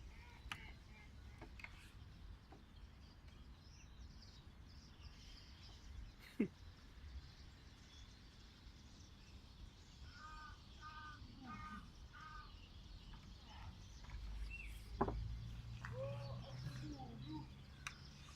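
Birds calling outdoors, with a run of four short, harsh, evenly spaced calls in the middle and other scattered calls. A low steady hum comes in during the second half, and a sharp knock sounds twice.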